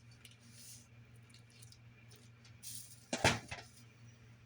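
Faint steady low hum with a few small ticks, then a brief loud clatter of something being handled a little after three seconds in.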